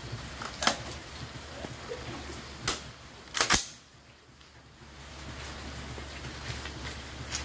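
Sharp metallic clicks and clacks of a Taurus T4 AR-15-pattern rifle being handled as its magazine is seated and the rifle made ready to fire. The loudest is a quick double clack about three and a half seconds in.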